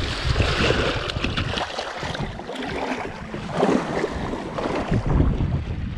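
Wind buffeting the microphone over small waves washing and splashing around feet wading through shallow surf.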